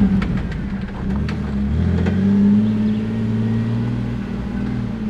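Jeep Wrangler JL engine running under throttle as it crawls over a trail obstacle, picking up about two seconds in, with a few sharp knocks from the tires and chassis on the rough ground.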